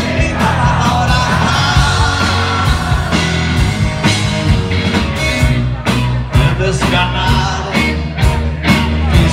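Live rock band playing, heard from the crowd: electric guitars, bass and drums with sung vocals. The drum hits come through more sharply in the second half.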